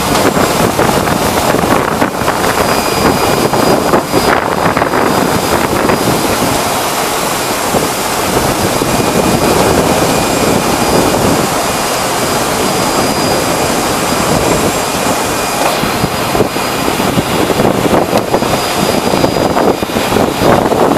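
Sugar factory cane-preparation machinery running: a loud, steady industrial din from the cane carrier and cane knives shredding cane, with a faint high whine over it.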